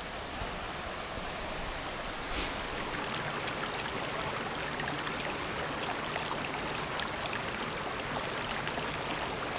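Mountain creek rushing over small rocky cascades, a steady wash of water. One brief knock about two and a half seconds in.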